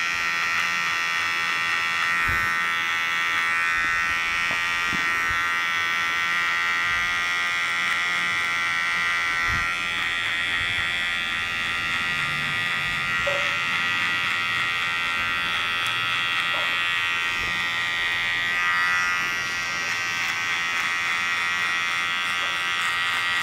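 Electric hair clipper buzzing steadily as it fades the hair at the sides of a head down toward the skin.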